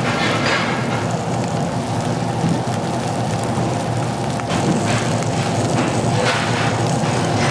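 Pork sizzling on a hot grill: a steady sizzle with occasional louder pops.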